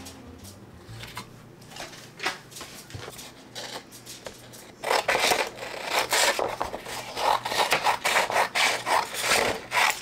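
Scissors cutting through a sheet of fine sandpaper. Quieter rustling as the sheet is handled comes first, then from about five seconds in a dense run of loud, quick scraping cuts.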